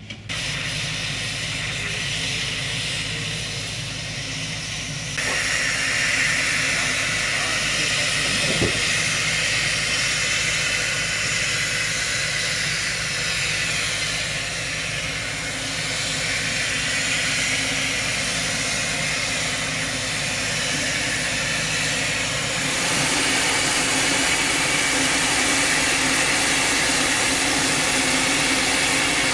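Steady hiss of steam escaping from a steam locomotive over a low engine hum, stepping louder about five seconds in and again near the end.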